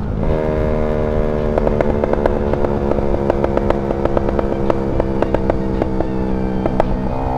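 Honda Sonic 150R single-cylinder four-stroke motorcycle running at steady part throttle, with a quick irregular crackle of exhaust pops starting about a second and a half in: unburnt fuel firing in the exhaust with the O2 sensor unplugged and the throttle eased off and held slightly open. Near the end the pops stop and the engine revs up.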